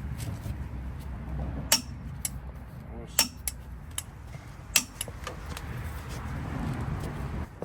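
Steel hand tools clinking against the truck's wheel hub and brake parts: a few sharp, ringing metallic clicks and clinks over a low background rumble.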